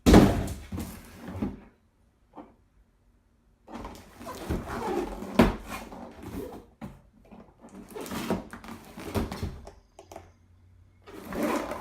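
Box and packaging being handled: irregular bursts of rustling and scraping with a few sharp knocks, the loudest right at the start and another about five seconds in, with a pause of about two seconds early on.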